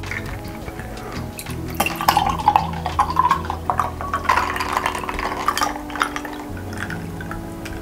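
Fizzy red lemonade poured from a plastic cup into a wine glass, splashing and trickling with small clinks of ice, most busily between about two and six seconds in.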